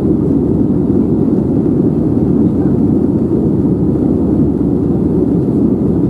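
Airliner cabin noise: the engines and the rushing air heard from inside the passenger cabin, a steady, loud, low rumble with no changes.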